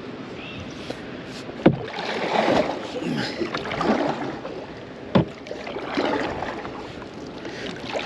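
Kayak paddle strokes: the blades dip and splash through the water in a steady rhythm about once a second, with two sharp knocks, one at about 1.7 s and one at about 5 s.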